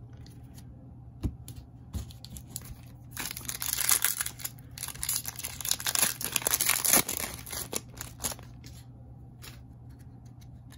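Foil trading-card pack wrapper being torn open and crinkled: a few light taps, then about five seconds of tearing and crackling from about three seconds in.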